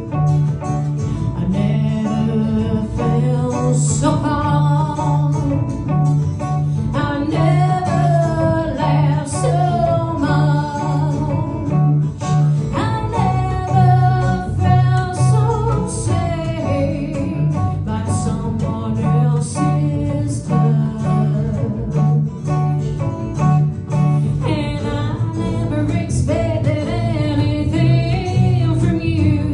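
A song: guitar accompaniment with a voice singing over it and a regular bass line underneath.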